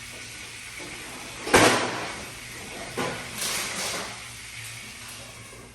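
Kitchen clatter: a sharp knock about one and a half seconds in, the loudest sound, a second knock about three seconds in, then a brief scraping rustle.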